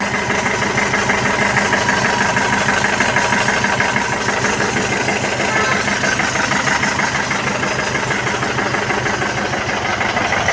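Mahindra Bolero Camper's diesel engine idling steadily after its full engine repair, with an even, rapid firing pulse and no revving.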